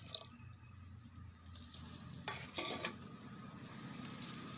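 Milk poured from a steel tumbler into a clay pot heating over a wood fire, with a low hiss. A few sharp metal clinks come just past halfway as a steel plate is set on the pot as a lid.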